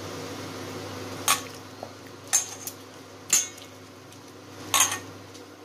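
Chicken pieces being mixed by hand in a stainless steel bowl, the bowl clinking sharply four times, about a second apart, over a steady low hum.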